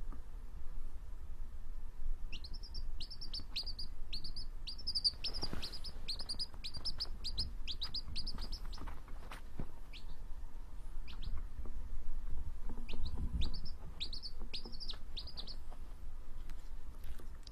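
Baby chicken chick peeping: a quick run of short, high, falling peeps, a few scattered ones, then another run of peeps near the end.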